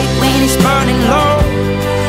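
Background music: an instrumental stretch of an acoustic pop song, a gliding melodic line over steady chords and a regular beat.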